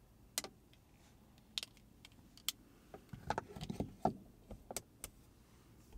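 Plastic clicks and taps as sunglasses are folded and set into a car's overhead-console sunglass holder, followed by a cluster of knocks a little past three seconds in as the holder lid is pushed shut.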